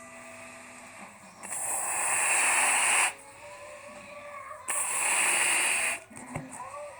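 Air rushing through the neck of a rubber punch balloon: two hissing bursts, each about a second and a half long, with faint squeaky tones from the stretched rubber in the quieter gaps between.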